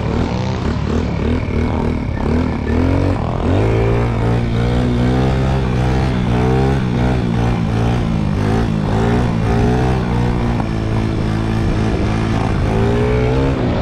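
Moped engine running while being ridden, its note rising and falling over and over as it revs. A steady lower engine hum joins in about three seconds in.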